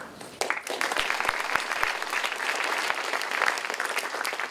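Audience clapping, many hands at once, starting about half a second in.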